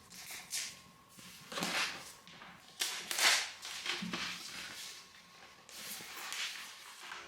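Packaging from a laptop unboxing being handled: a series of short, irregular rustling and scraping swishes, the loudest about three seconds in.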